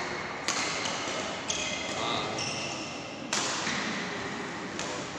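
Badminton rackets striking a shuttlecock, a few sharp hits one to two seconds apart, each echoing in a large sports hall.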